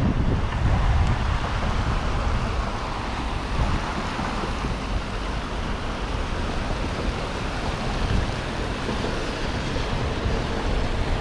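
Water rushing hard through a small man-made spillway, a steady roar of noise, with wind buffeting the microphone.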